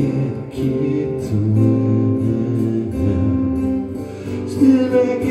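Amplified acoustic guitar strummed in a steady rhythm, ringing chords with no singing.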